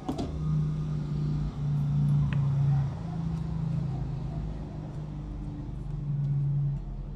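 A low hum that comes and goes in stretches of about a second, over a few faint ticks from masking tape being torn and handled.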